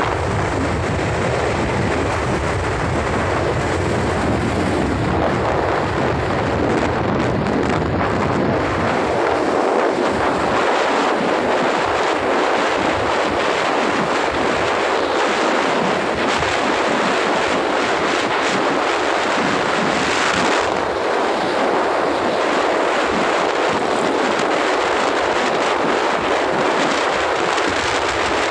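Steady wind noise buffeting the microphone of a moving motorcycle, with a heavier low rumble for roughly the first nine seconds.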